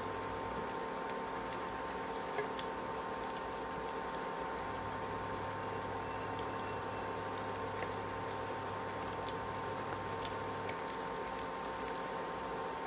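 Mung dal mathri deep-frying in hot oil: a steady bubbling sizzle with faint scattered crackles, the oil foaming heavily because it is unfiltered.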